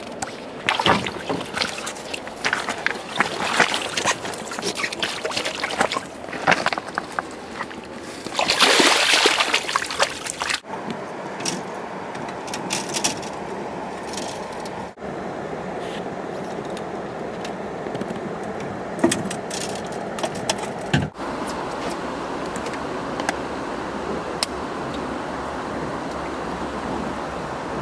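Water splashing and sloshing as a winter steelhead is released by hand into the river, with the loudest splash about nine seconds in. After that a steady rushing background noise runs on, with a few light clicks.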